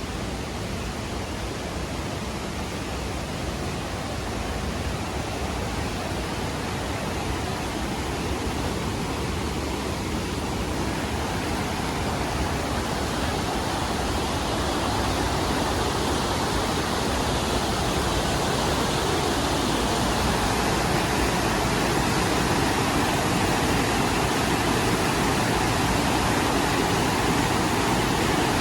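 Rushing water of a mountain gorge's stream and waterfalls, a steady rush growing gradually louder.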